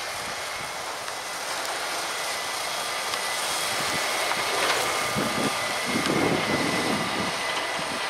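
Fendt 720 Vario tractor pulling a grain trailer across the field, its six-cylinder engine running steadily under load with a thin, steady high whine. It grows gradually louder, with low gusty rumbling in the second half.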